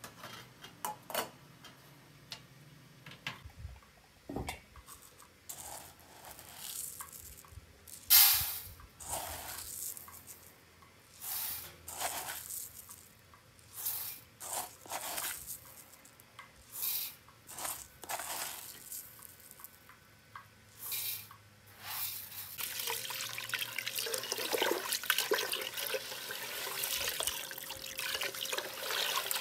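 Dry rice poured into a metal pot in a series of short pours, each a brief rattling rush. About three quarters of the way through, water starts running steadily from a hose into the pot while a hand swishes the rice around to rinse it.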